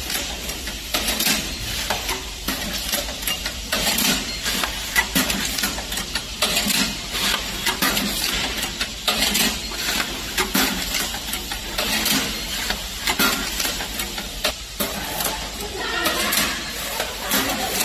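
Automatic banding machine running through its banding cycles on a box: a steady low motor hum under a run of clicks and clatters, about one or two a second, as it feeds, tensions and heat-seals the 49 mm band.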